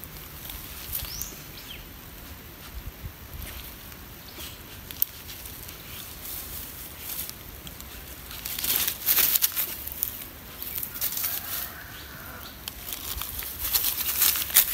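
Leaves and plants of the ground cover rustling and crackling, in two louder bursts, about nine seconds in and again near the end.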